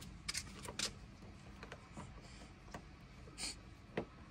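Flathead screwdriver turning a sun visor's mounting screw in a car's ceiling, with scattered small clicks, a brief scrape a little past three seconds in and a sharp click about four seconds in.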